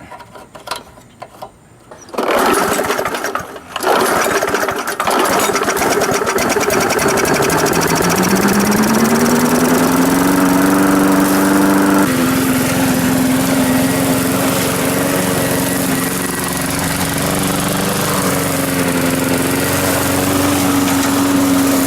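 Gasoline lawn mower engine starting: it catches about two seconds in, falters briefly, then keeps running. It speeds up, with a rising pitch, and settles into a steady run.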